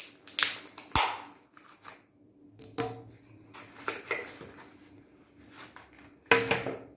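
About five sharp knocks and clatters of objects being handled, spaced a second or more apart. The one about a second in has a low thud, and the loudest comes about six seconds in.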